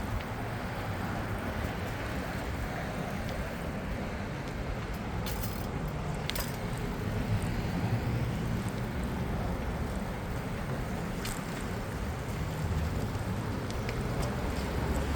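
Steady city traffic and wind rumble heard from a moving bicycle, with a few short sharp clicks.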